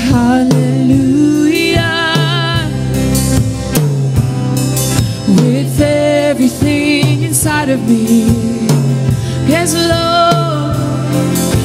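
A live worship band performing: a woman's lead voice sings long, wavering held notes over keyboard, acoustic guitar and drum kit, with backing singers.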